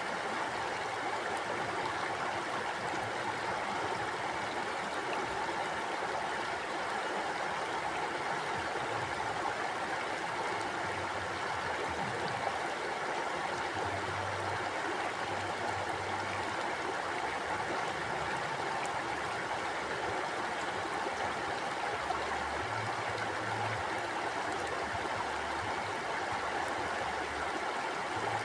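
Mountain river flowing over rocks: a steady, even rush of water with gurgling.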